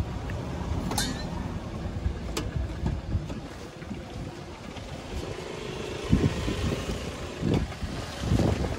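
Low, steady rumble of road traffic, with two sharp clicks in the first few seconds and several dull thumps near the end.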